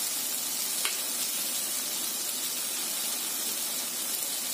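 Potato and eggplant cubes with chopped garlic sizzling in oil in a non-stick frying pan: a steady hiss, with a single light click about a second in.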